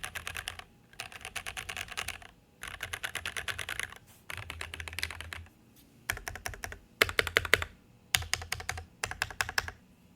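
Rapid typing on a Noir N1 Pro mechanical keyboard with lubed and filmed Durock EV-02 tactile switches and GMK keycaps. The keystrokes come in bursts of about a second with short pauses between them, and the last few bursts are louder and sharper.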